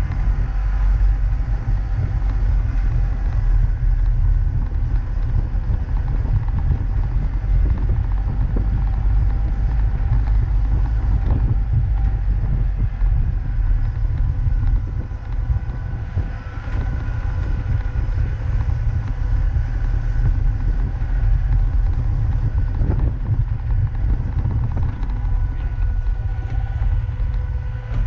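Vintage open trials car driving over a rough dirt track: a steady low rumble of engine and wind buffeting on the microphone, with a thin steady whine above it.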